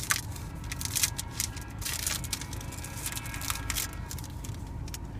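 Foil trading-card pack wrapper crinkling and tearing as it is opened by hand, over a low steady rumble.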